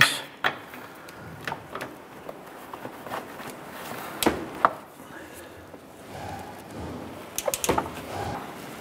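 Torque wrench and socket on a lower control arm mounting bolt being tightened to 92 foot-pounds: scattered single clicks and knocks of metal tools, with a quick run of several clicks near the end.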